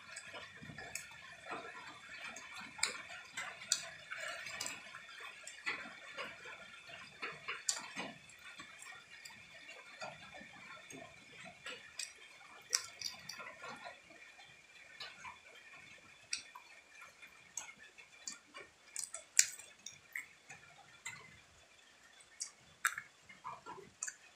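Close-up eating sounds of a person chewing and gnawing chicken held in the fingers: irregular wet mouth clicks and smacks, scattered and uneven, over a faint steady high hum.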